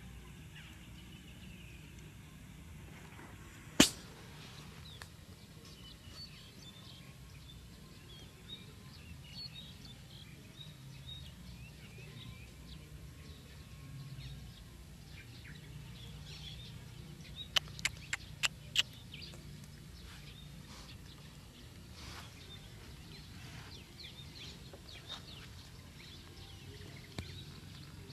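Outdoor ambience with scattered faint bird chirps over a low steady rumble. A single sharp click comes about four seconds in, and a quick run of five sharp clicks a little past the middle.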